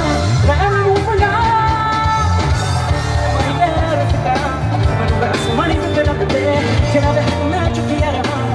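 Live band with a lead singer, played loud through a concert sound system and heard from within the crowd, over a steady bass and drum beat.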